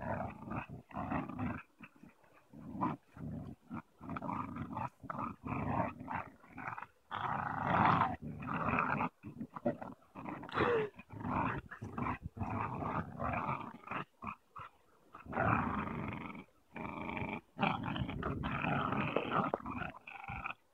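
An American Staffordshire terrier and two pit bulls growling in play as they pull against each other on a tug rope. The growls come in short bursts with brief gaps.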